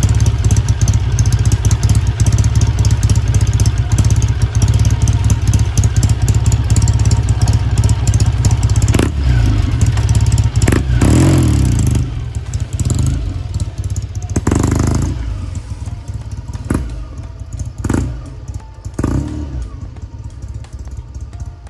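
1968 Kawasaki W1S's 650 cc parallel-twin engine idling loud, a little unsteady, then revving as the motorcycle pulls away. It grows fainter as the bike rides off, with several short blips along the way.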